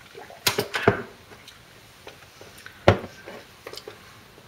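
A drink container knocked and set down on a tabletop: a quick cluster of clicks and knocks about half a second in, then a single sharp knock near three seconds.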